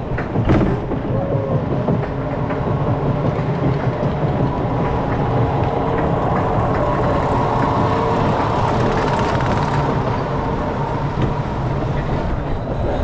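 Arrow mine train roller coaster climbing the last of its chain lift with a clatter, then cresting and rolling down into a curve, its wheels rumbling on the steel track.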